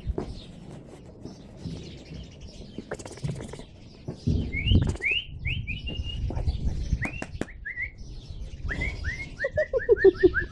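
Young Caucasian Shepherd Dog puppies squeaking: scattered short high squeals from about four seconds in, then a quick run of them, several a second, in the last two seconds, over low rumbling noise.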